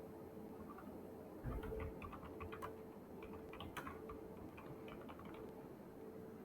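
Faint typing on a computer keyboard: irregular keystroke clicks starting about a second and a half in, with a low thump as they begin.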